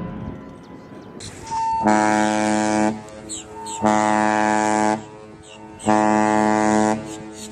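Cruise ship's horn sounding the short blasts of the general emergency (muster) signal: three blasts of about a second each, two seconds apart, with a rushing background noise between them.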